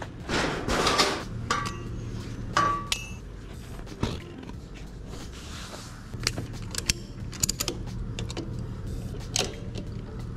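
Metal clanks and rattles as a steel mesh trailer ramp gate is handled, followed by scattered sharp clicks and knocks of a ratchet strap and footsteps on the wooden trailer deck, over a low steady hum.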